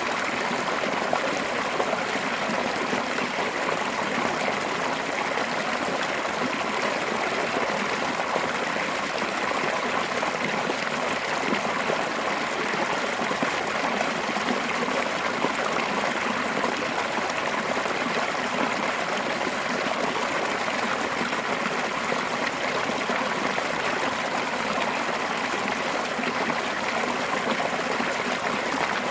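Fast-flowing mountain stream, water pouring over a small drop in a steady rush with fine trickling and splashing.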